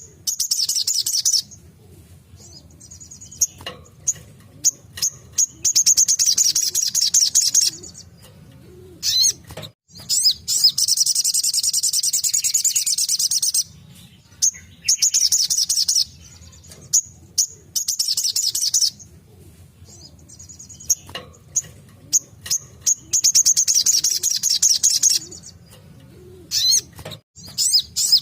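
Sogon, a sunbird, singing in its rapid-fire 'tembakan' style: bursts of fast, high-pitched trilling a few seconds long, repeated several times, with short chips and calls in the gaps. A faint low hum lies underneath.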